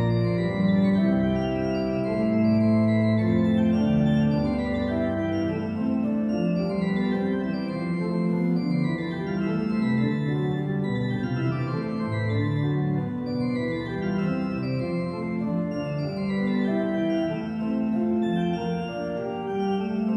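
Pipe organ, the Anthonius Wilde organ, playing a multi-voiced 17th-century canzona. Several lines move against one another over held lower notes, at a steady level.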